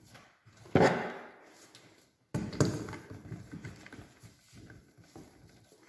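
Metal parts of a pullout test rig being handled on a concrete cube: two loud knocks or clunks about one and a half seconds apart, each fading over about a second, as the bearing ring is fitted and the hydraulic jack is set on it, with lighter handling noise between.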